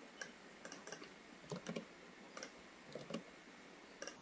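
Faint, irregular clicks of a computer mouse, about a dozen over four seconds, some in quick pairs or threes, as settings are clicked and a slider is dragged.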